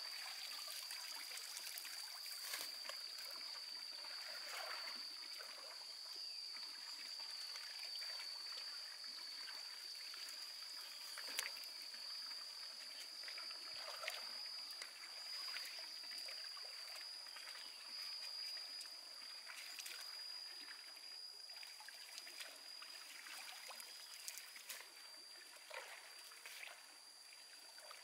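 Faint outdoor ambience: a steady high-pitched tone over a soft trickling hiss, with occasional small clicks.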